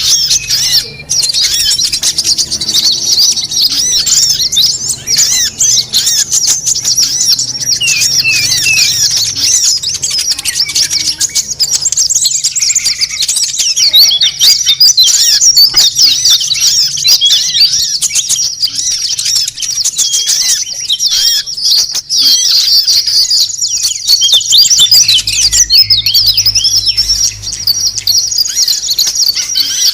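A dense chorus of many small songbirds chirping and twittering at once, high-pitched and unbroken: a 'noisy birds' lure mix (suara burung ribut) played to call wild small birds in.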